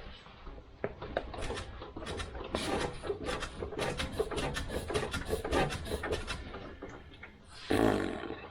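Irregular clicks, knocks and rubbing of hands and tools handling parts under a Jeep's suspension, with a louder rasping scrape near the end.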